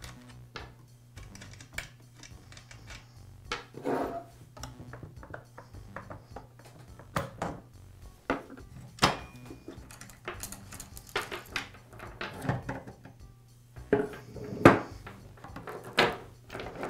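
Metal clinks, knocks and chain rattle as the nuts, side cover, guide bar and chain come off a Husqvarna chainsaw and are set on a wooden workbench. The hits are scattered and irregular, the loudest coming about three-quarters of the way through.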